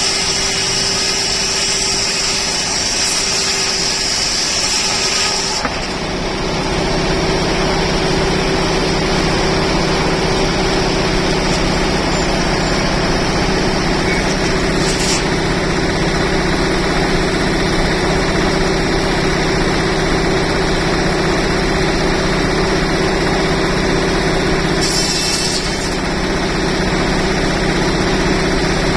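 Old sawmill machinery running steadily. A high-pitched whine stops about six seconds in, leaving a steady lower mechanical hum.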